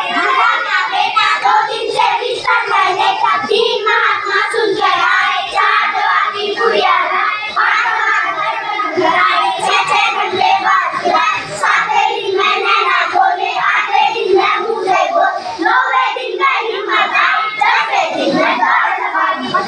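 A group of young children singing together in unison, a morning-assembly prayer song, steady and unbroken.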